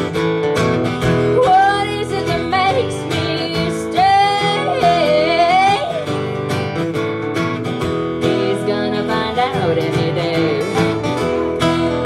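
Live country song played on strummed acoustic guitar, with a wavering lead melody over it for much of the time.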